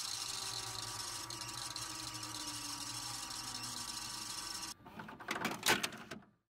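VCR rewind sound effect: a steady mechanical whir with tape hiss and a low hum. It stops about five seconds in, gives way to a few crackles of static, then cuts off.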